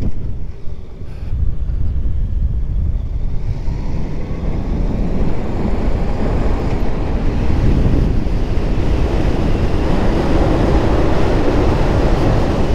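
Wind rushing over the camera microphone of a moving motorcycle, with the bike's running noise underneath. It dips about a second in, then builds steadily louder from about four seconds in as the bike speeds up out of a hairpin onto a straight.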